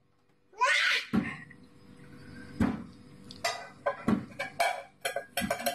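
A metal cooking pot and dishes clanking as a toddler handles them in a kitchen sink: about seven separate knocks and clanks spread over several seconds. A short high voice sound comes just before the first clank.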